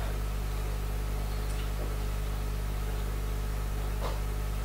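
Steady low hum with a faint even hiss, with no speech: room tone, with a faint tick near the end.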